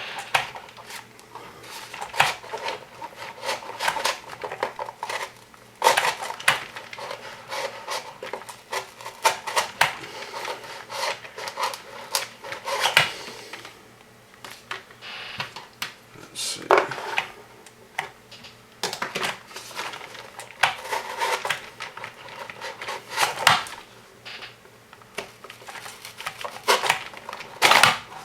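Hand work on the robot's box: an irregular run of sharp clicks, taps and scrapes from a knife cutting and handling parts.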